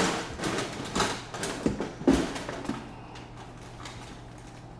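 Tools and parts being handled on a workbench: a run of short knocks and clatters, the loudest about two seconds in, then only a steady low hum.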